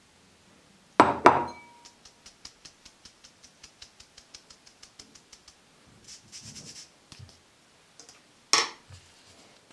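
Metal mesh sieve knocked and tapped against a glass mixing bowl while sifting flour: two sharp knocks about a second in, then a run of light, even taps about four a second, a short rustle of flour, and another loud knock near the end.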